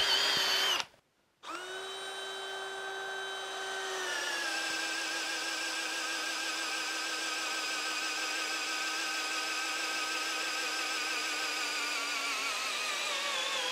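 A cordless DeWalt hammer drill runs an auger bit into the end grain of a log, its motor whining steadily under load. The pitch drops a little as the bit bites deeper and sinks slowly near the end as the drill labours and bogs down, struggling to finish the hole. A previous drill's run cuts off about a second in.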